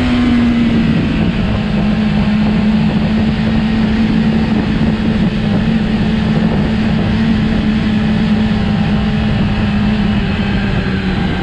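600-class inline-four sport motorcycle engine running at steady cruising revs with wind rushing past. The engine note drops a little just after the start and again near the end.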